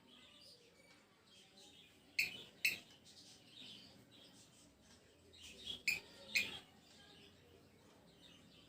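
Cockatiel giving short, sharp calls in two quick pairs, about two seconds in and again about six seconds in, with soft chirps in between.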